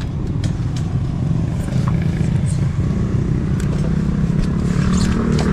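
An engine running steadily with a low drone, with a few light clicks over it.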